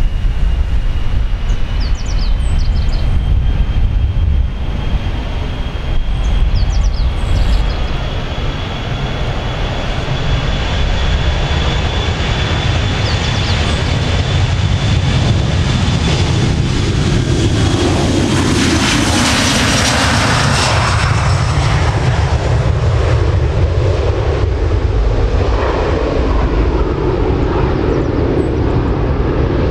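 A Boeing 737-500's CFM56-3 turbofan engines at takeoff thrust. A high whine rises at the start and then holds steady under a deep rumble as the jet rolls down the runway. About 18 seconds in comes a loud rush of jet noise as it passes, then the sound falls in pitch as it climbs away.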